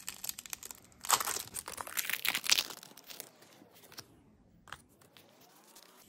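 A Pokémon card booster pack's foil wrapper being torn open and crinkled by hand. The crackling is loudest from about one to three seconds in, then fades to light rustling.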